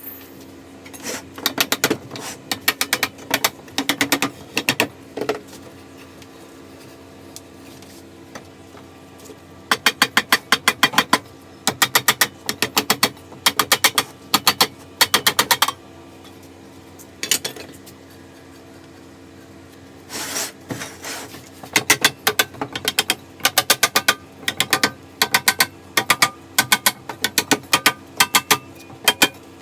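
Bursts of rapid, evenly spaced metallic clicking from hand-tool work, several seconds at a time with short pauses between, like a ratchet being worked.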